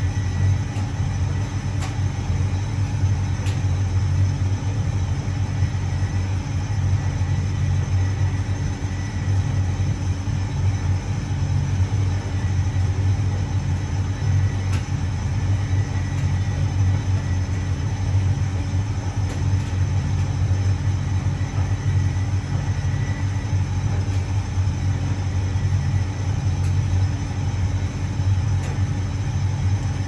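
Hotpoint Reversomatic 9327 vented tumble dryer running on low heat: a steady, even rumble of the turning drum and motor, with a few faint ticks.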